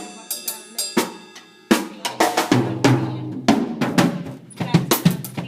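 Drum kit played with sticks: an uneven run of snare and bass drum hits, several a second, like practice fills.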